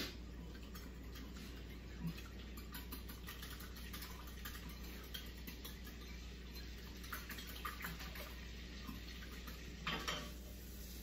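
Egg, milk and spices being beaten in a ceramic bowl: quick, light clicks of the utensil against the bowl, with a brief louder clatter near the end.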